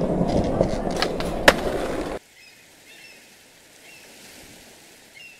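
Skateboard wheels rolling with a loud rumble and two sharp clacks, cutting off abruptly about two seconds in. After that, faint short bird chirps over a quiet background.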